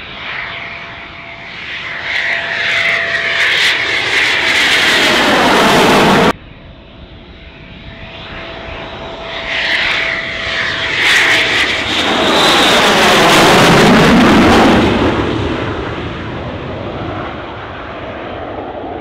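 Eurofighter Typhoon jet engines as the fighters pass low overhead coming in to land: a steady whine swells into a loud rushing roar that drops in pitch as each jet goes by. The first pass cuts off suddenly about six seconds in, and a second pass follows, loudest around twelve to fifteen seconds in.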